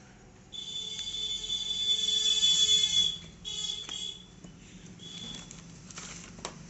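A shrill, steady tone with overtones, held for about two and a half seconds, then sounding twice more briefly, much louder than the faint handling of the box.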